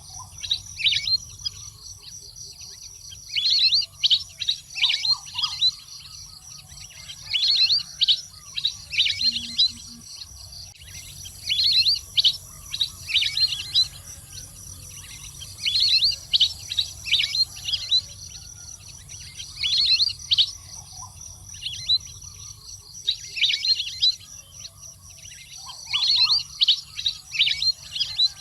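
Waterbird calls: clusters of rapid, high, falling chirps lasting a second or two and repeating about every four seconds, over a steady high insect drone.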